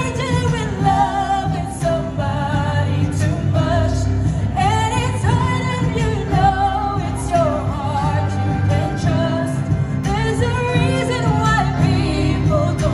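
A song with a sung melody over steady instrumental accompaniment, played loud through the hall's sound system.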